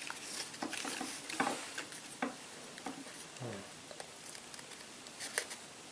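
Scissors cutting lengthwise through a sheet of birch bark: small crisp snips and scratchy rustling of the bark, with scattered clicks.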